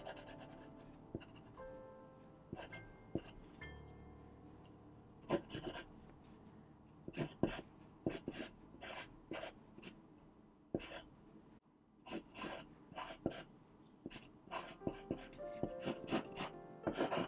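Pencil sketching on paper: short, quick scratchy strokes in irregular bursts, with a brief pause a little past halfway.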